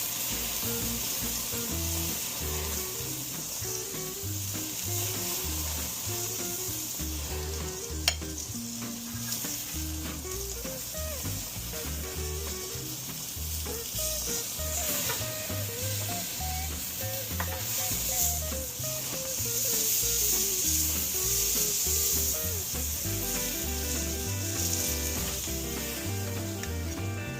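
Beef chuck eye steaks sizzling steadily as they sear on a hot gas grill, the sizzle swelling for a couple of seconds past the middle. There is one sharp click about 8 seconds in.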